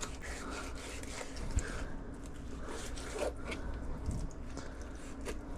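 Fillet knife slicing a triggerfish fillet off the frame: faint rasping cuts and small clicks over a low steady hum.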